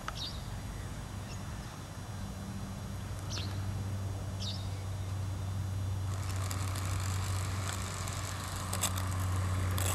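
Small electric radio-controlled helicopter on the grass with its motor and rotors running, a steady hum joined by a higher whirring hiss from about six seconds in as it spins up.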